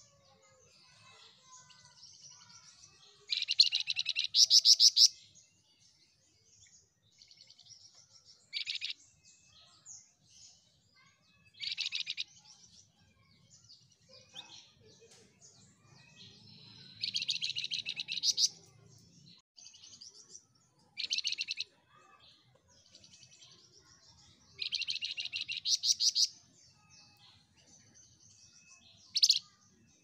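A caged flamboyan songbird singing repeatedly: about seven short, loud phrases of rapid high trilled notes, with soft twittering between them. The loudest phrases come about four seconds in and near twenty-six seconds in.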